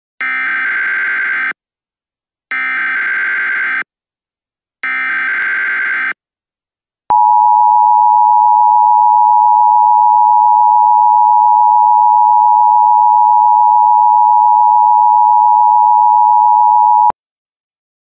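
Emergency Alert System tones: three bursts of SAME header data, each a little over a second long with about a second between them, which encode the alert. Then the EAS two-tone attention signal, a steady loud dual tone held for about ten seconds that cuts off abruptly.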